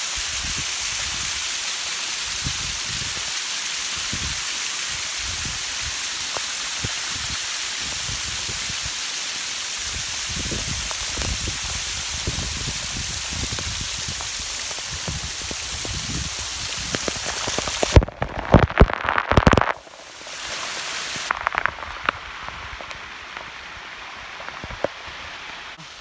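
Water of a small waterfall with low flow, spilling and splashing over a rock face right at the microphone: a steady, loud hiss. Late on, a run of loud knocks and crackles breaks in, and after it the splashing is much quieter.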